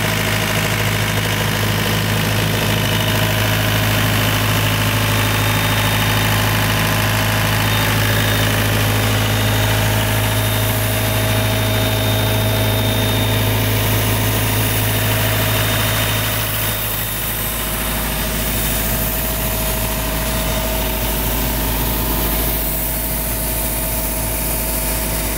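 Deutz diesel engine of an Ingersoll Rand portable air compressor running steadily. About two-thirds of the way through, its low hum fades and the sound drops a little in level, then carries on evenly.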